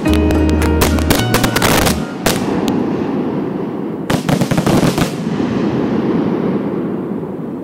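Fireworks bursting: a rapid run of bangs and crackling with music playing under it for the first two seconds, a single report, then another dense salvo about four seconds in that echoes and dies away.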